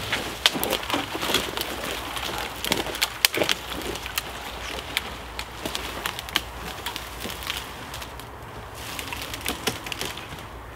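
Twigs and small branches cracking and snapping in dense clusters over the first few seconds, then thinning to scattered snaps and rustling as someone pushes through dead wood and undergrowth.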